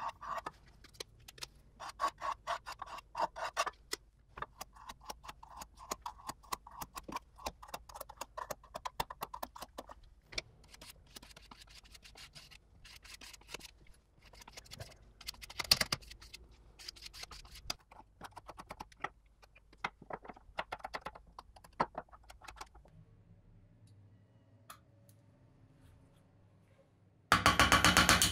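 Brush and small spatula scraping and dabbing a thick paste onto small metal parts: a dense run of quick scrapes and taps that thins out after about twenty-three seconds. Near the end, a loud burst of noise lasting about a second.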